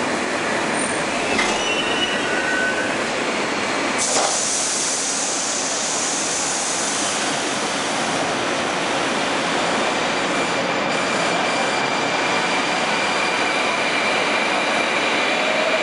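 81-760/761 'Oka' metro train coming to a stop at a platform, with short faint squeals from the brakes and wheels. About four seconds in a sudden hiss of air starts and fades over a few seconds as the doors open, leaving steady station noise.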